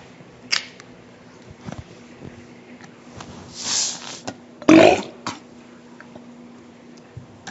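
A child burps once, a short loud belch about five seconds in, with a breathy rush of air about a second before it.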